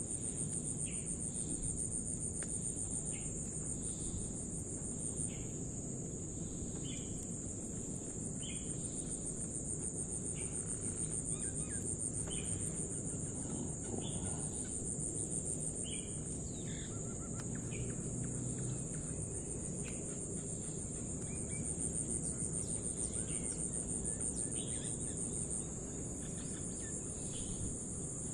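Steady high-pitched insect chirring, a fast pulsing trill that goes on without a break, with scattered short bird chirps over a low background rumble.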